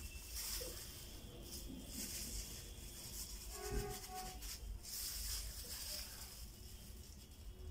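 Plastic rustling and crinkling as gloved hands rub a wet seasoning paste onto raw chicken on a plastic bag, in several short bouts, with a brief hum-like tone about halfway through.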